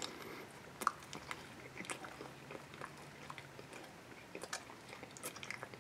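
A person chewing a mouthful of ham, fried marshmallow Peeps and chocolate-covered jelly beans: soft, wet clicks and smacks close to the microphone, with a sharper one about a second in.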